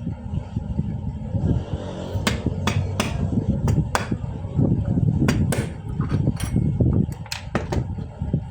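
Sharp metal taps and clicks, about a dozen at irregular intervals, from hand work on a stapler's metal parts, over a steady low rumble.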